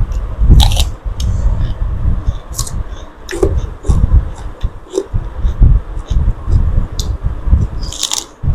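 Close-miked eating: a person biting and crunching food, with chewing and irregular sharp crackles throughout.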